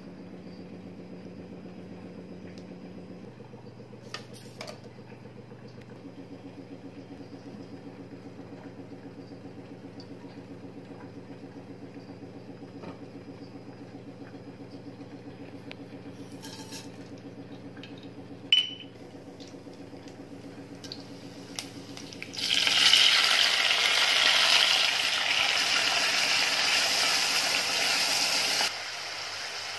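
Chopped onions, tomatoes and green chillies sizzling in hot oil in a steel pan. The sizzle starts about three-quarters of the way in and cuts off sharply near the end. Before it there is a steady low hum with a fast flutter and a sharp click a little past halfway.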